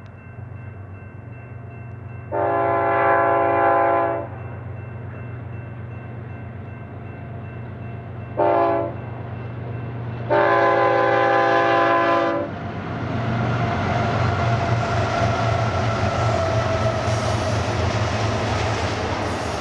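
BNSF freight train's diesel locomotive sounding its multi-chime air horn in three blasts (long, short, long) over the low, steady drone of its engine. After the last blast the train's rumble and wheel rattle grow louder and hold steady.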